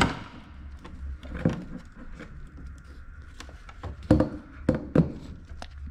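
Handling noise as gloved hands pull a window air conditioner's control board and its wires out of the housing: scattered light clicks and knocks, with a few sharper knocks about a second and a half in and near the end.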